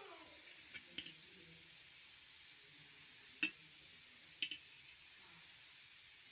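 A few faint sharp taps as a hand tears a piece of omelette on a stainless steel plate: one about a second in, a clearer one about three and a half seconds in, and a quick double tap a second after that.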